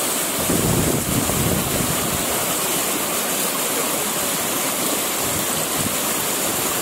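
Shallow stream running over rocks, with hands sloshing and splashing in the water as they grope for fish; the splashing is loudest about half a second to a second in.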